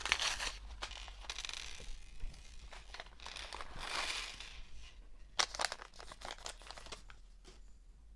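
Plastic bag of LEGO parts crinkling and rustling as it is handled, with a few sharp clicks about five and a half seconds in, fading toward the end.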